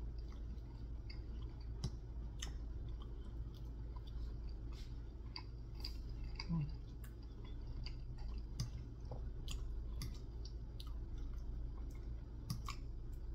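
A person chewing soft food such as meatballs and mashed potatoes close to the microphone, with wet mouth sounds and scattered small clicks of a metal fork against a plate, over a low steady hum.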